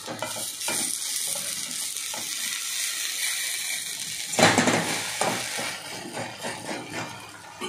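A thick idli-batter dosa frying in an oiled kadai, sizzling steadily, with a metal spatula scraping under it. About four and a half seconds in, it is flipped over and the sizzling surges briefly.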